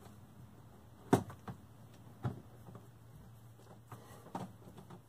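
A few sharp knocks and clicks of the toilet's seal parts being handled as a new rubber bowl seal is fitted on a porcelain Dometic/Sealand RV toilet. The loudest comes about a second in, with smaller ones around two and four seconds.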